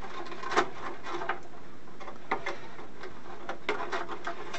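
Scattered light clicks and ticks of small pliers and wires being worked at the plastic base-socket connector of an oscilloscope's CRT, at irregular spacing.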